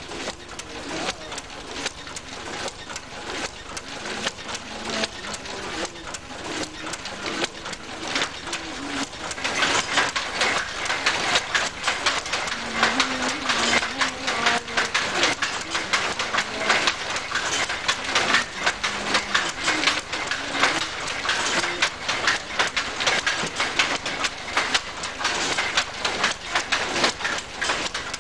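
Foot-treadled tweed loom running: a fast, continuous mechanical clatter of the shuttle and beater, growing louder about nine seconds in.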